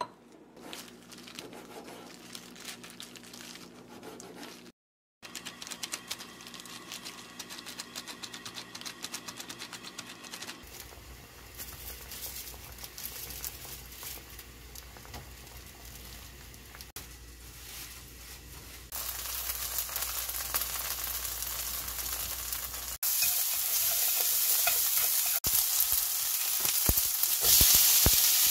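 A spoon scraping and stirring potato-and-flour gnocchi dough in a bowl, then water boiling in a pan as the potato gnocchi blanch. About five seconds before the end the loudest sound starts: sliced onion and bacon sizzling in a frying pan, growing louder near the end.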